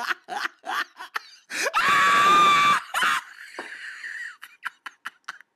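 A man laughing breathlessly in quick bursts, then letting out a long, loud yell of excitement about two seconds in while fighting a fish on the line. After it come a short hiss and a few faint clicks.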